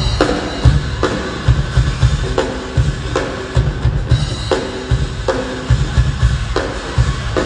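Live rock band playing: a drum kit's heavy bass-drum and snare hits land about every 0.8 seconds under held electric guitar chords.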